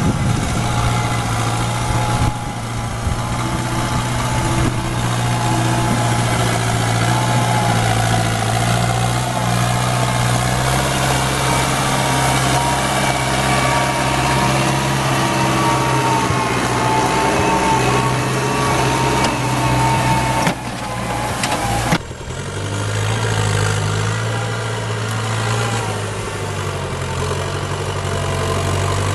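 Diesel engine of a wheeled forestry tractor running steadily under load as it drags a log trailer through deep mud. The sound drops and shifts abruptly twice, about twenty and twenty-two seconds in, and the engine note then settles at a different pitch.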